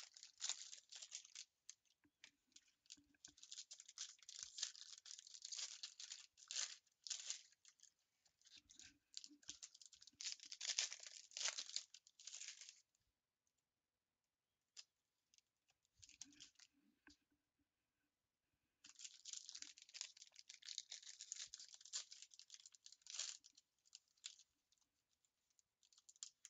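Trading card packs being torn open, their foil wrappers tearing and crinkling in bursts, with a pause of a few seconds around the middle.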